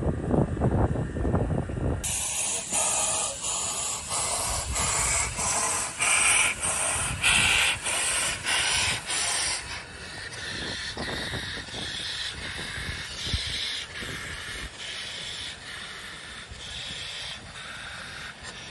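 HG 3/4 No. 1 rack steam locomotive pulling away, its exhaust chuffing in slow regular beats over the hiss of escaping steam. The chuffs are loudest in the middle and grow fainter from about ten seconds in. The first two seconds are a low wind rumble on the microphone.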